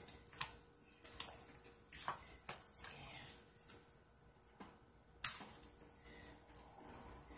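A spatula stirring thick hot process soap paste in a crock-pot: soft, irregular scraping and squishing, with one sharp knock about five seconds in.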